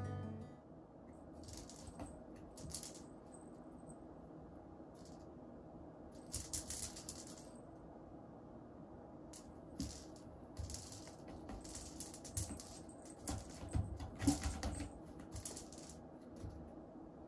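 A cat batting at a ball toy hanging on a string and pawing at a sisal scratching post: scattered light taps, scratches and small rattles, coming in short flurries with a busier spell about three-quarters of the way through.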